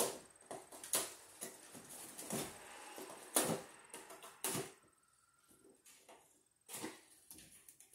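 Wire strippers clicking and snipping as insulation is stripped off electrical wires: an irregular string of sharp clicks, dying down about five seconds in, with one more click near the end.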